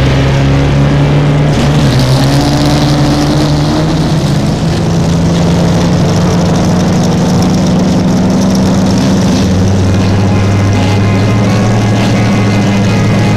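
Off-road desert race vehicle's engine running loud and hard at steady revs, its pitch shifting a few times.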